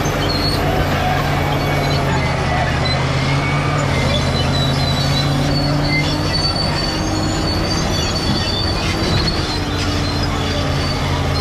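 Caterpillar D7G crawler bulldozer running steadily, its diesel engine humming low under high, intermittent squeals from the steel tracks.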